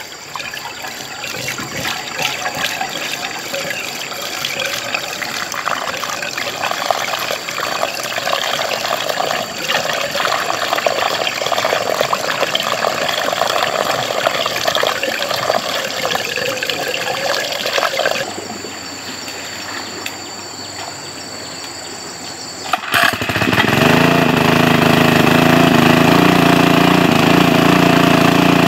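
Water splashing and running for about the first eighteen seconds, then a quieter few seconds. About twenty-three seconds in, the engine of a large-capacity water pump starts suddenly and runs steadily.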